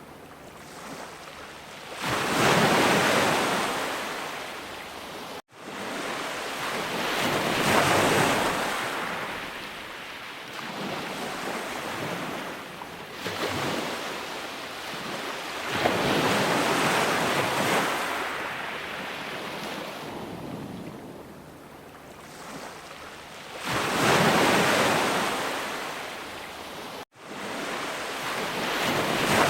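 Sea waves breaking and washing up in repeated surges, each swelling and then fading away over several seconds. The sound cuts out abruptly for an instant twice.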